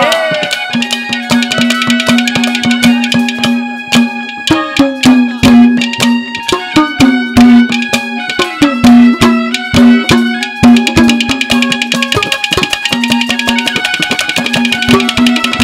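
Instrumental interlude of Haryanvi ragni accompaniment: a harmonium plays a melody over a steady drone note, with fast hand-drum strokes throughout and a few bass strokes that swoop downward in pitch.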